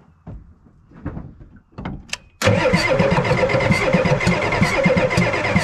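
Starter cranking a 1990 Ford F-350's 7.3 IDI diesel V8, cutting in suddenly about two and a half seconds in after a few light clicks, with a steady whine and a fast, even beat of compression strokes, after a shot of ether into the open intake; the engine does not catch.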